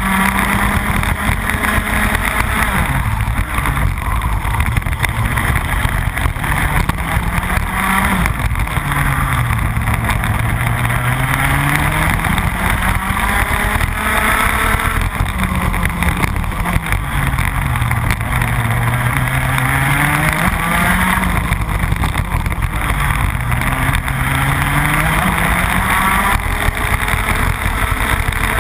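Rotax Max 125cc two-stroke kart engine at racing speed. Its pitch climbs steadily down each straight, then drops away for the corners about five times before rising again.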